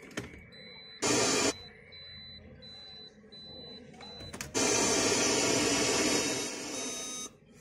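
Electronic sounds from a Toyota Corolla's navigation head unit and dashboard: a click, then a short loud burst of hiss, while a soft high beep repeats about every half second. After another click, a loud hiss with faint steady tones comes from the car's audio for nearly three seconds, drops slightly, then cuts off suddenly. The head unit puts out sound while its screen stays blank.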